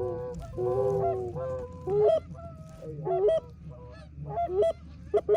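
Canada geese honking: a run of long, drawn honks, then shorter, separate honks.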